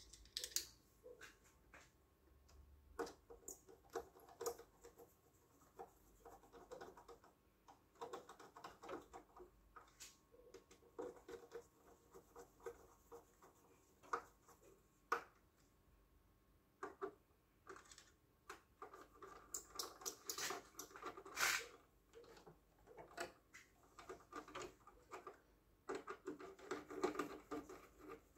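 Faint, irregular clicks, taps and scraping of parts and tools being handled during hands-on reassembly of an electric car charger unit.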